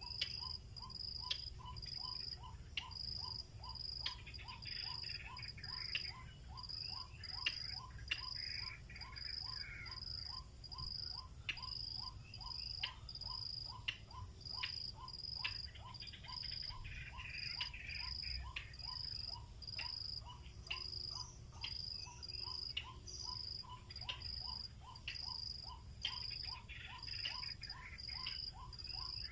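White-breasted waterhen (wak-wak) call played as an mp3 lure: a short note repeated monotonously about twice a second. Under it are steady high insect chirping and a few sharp clicks.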